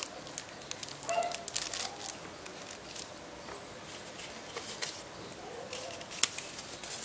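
Dogs barking faintly, a few short calls about a second in and again near the end, over scattered clicks and rustles of plastic packaging being handled.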